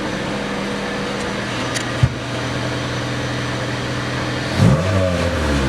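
Honda Civic's four-cylinder engine idling steadily through a muffler whose hole is patched with Flex Tape and Flex Seal, then revved up and back down once about four and a half seconds in. The patch is holding and the exhaust is running with the hole sealed.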